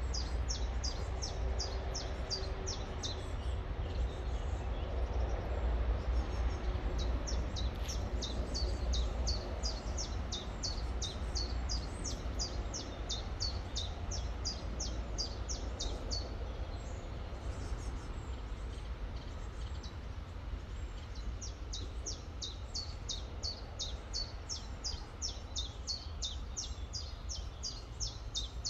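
A songbird repeating short, high chirps in quick runs of about three a second, pausing twice, over the steady rush of river water and a low rumble.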